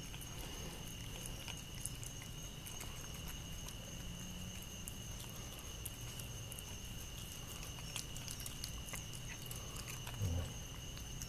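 Cat chewing and smacking wet canned cat food from a plastic dish: a run of small irregular clicks, over a steady high-pitched tone in the background.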